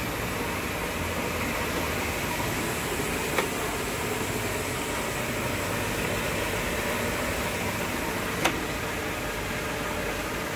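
Mori Seiki MS-850 three-phase lathe running, its spindle and chuck turning with a steady mechanical whir. Two short sharp clicks, a few seconds apart.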